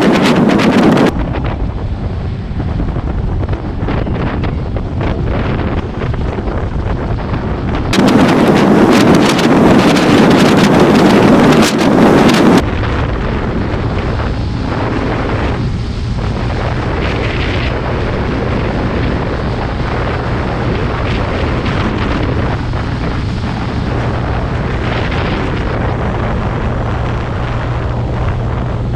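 Wind rushing over the microphone of a moving motorcycle, loudest in two stretches at the start and from about 8 to 12 seconds, with a steady low engine hum underneath from about 12 seconds on. The sound changes abruptly several times where the footage cuts.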